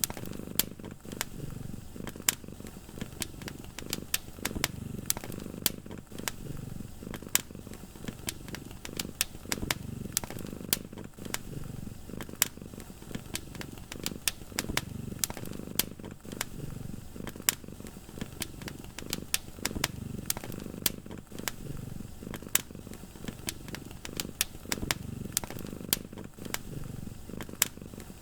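Wood fire crackling, with sharp pops scattered irregularly throughout, over a cat's low purr that swells and fades in slow, even cycles.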